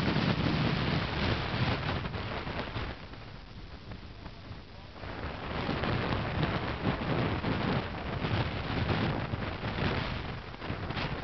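Strong gusty wind buffeting the microphone. It drops to a lull about three seconds in and gusts up again about two seconds later.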